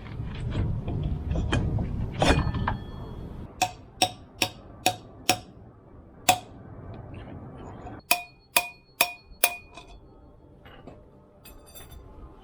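Sharp metallic clicking from the front of an APTrikes125 trike, coming in runs of four or five clicks about two a second after a low rumble at the start. The clicking noise comes from a front hub bearing that has rusted and broken up.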